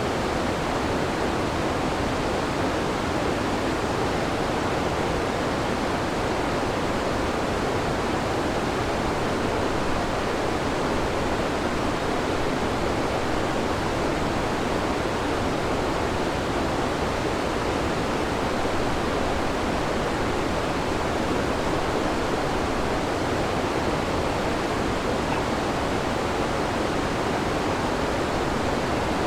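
Chyorny Padun waterfall on the Kolvitsa River: a steady, unbroken rush of falling water.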